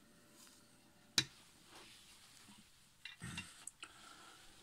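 Handling noise as objects are moved on a cloth-covered table: one sharp click about a second in, then a few soft knocks and rustles around three seconds in.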